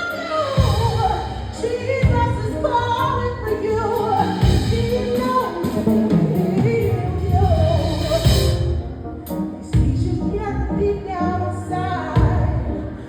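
Music with a singing voice over a heavy, steady beat.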